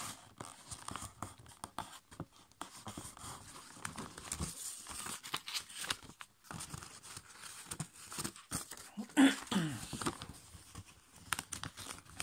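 A5 copy paper being folded and creased by hand on a tabletop: crinkling and rustling with many short crackles and taps. One louder, brief sound with a falling pitch comes about nine seconds in.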